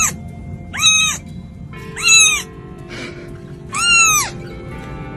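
A young kitten meowing four times: short, high-pitched mews that each rise and then fall in pitch, over background music.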